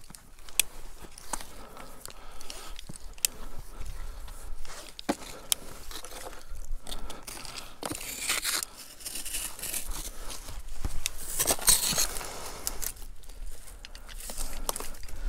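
Climbing gear, rope and clothing scraping and rustling against sandstone during a rope ascent and scramble, with scattered sharp clicks from carabiners and the ascender.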